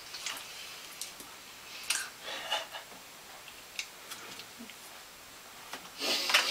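Plastic fork clicking and scraping against an aluminium foil pan of poutine while eating, a scatter of separate sharp ticks, with a louder burst of noise near the end.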